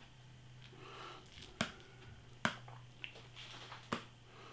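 A fork stirring soaked instant noodles in a paper noodle pot: a faint wet squelching with a few sharp clicks as the fork knocks the pot.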